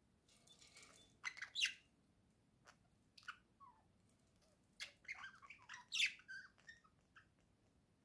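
Budgerigar chirping and chattering in two short bursts of quick warbled calls, one about half a second in and another about five seconds in, with a few single chirps between them.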